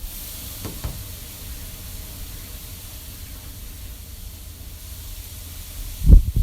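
Blizzard wind blowing as a steady hiss with a low rumble, then hard gusts buffeting the microphone near the end.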